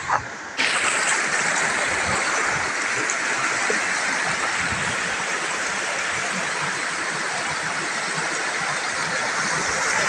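Shallow rocky river rushing over stones in a steady, even rush that cuts in about half a second in. A brief knock comes right at the start, before the water sound.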